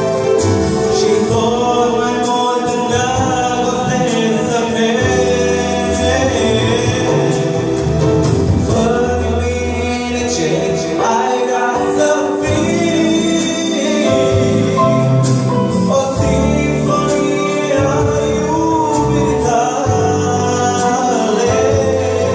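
A man singing a church song into a microphone, accompanied by accordion and electronic keyboard and amplified through the hall's PA speakers.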